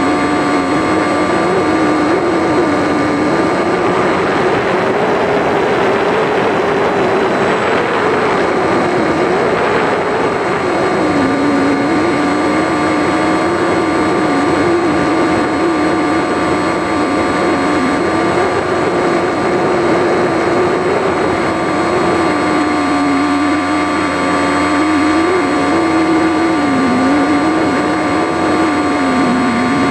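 Onboard sound of a radio-control plane's brushless electric motor and propeller in flight: a steady drone whose pitch wavers up and down with the throttle, over a constant higher whine. A rush of air swells between about four and ten seconds in.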